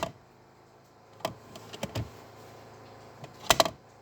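Plastic clicks and clacks of a Mercedes ML320 (W163) dashboard cupholder being worked by hand, a few light clicks in the middle and a loud double clack near the end. Its damping gear is missing, so the cupholder flaps out undamped instead of gliding out quietly.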